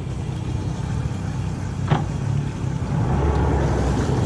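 Twin outboard motors running at low speed, their low rumble growing louder about three seconds in. A single sharp knock about two seconds in.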